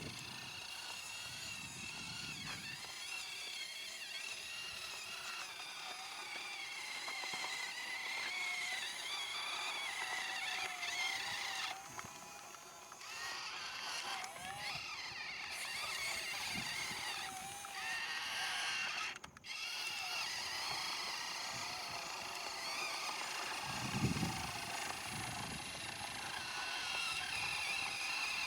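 Small electric motors and gearboxes of radio-controlled construction models whining, the pitch rising and falling as they speed up and slow down. The sound breaks off briefly twice, and there are a few dull knocks near the end.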